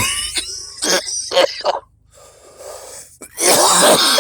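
A man with a cold coughing: a run of short coughs, a quieter breath, then one long harsh cough near the end.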